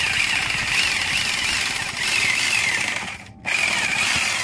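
Corded electric saw cutting through PVC conduit, its motor pitch wavering under load. It stops briefly about three seconds in, then runs again.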